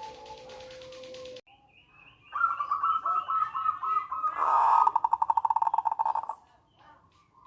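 Zebra dove (perkutut) singing: a short pulsed coo, then after a pause a loud run of staccato coo notes that breaks into a fast rattling trill, the manggung and nretek song used to set other perkutut calling.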